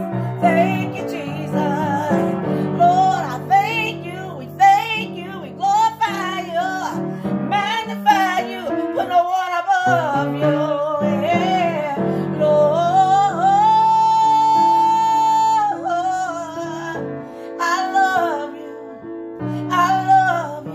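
A woman singing a slow gospel worship melody with vibrato, accompanying herself on piano chords, holding one long high note a little past the middle.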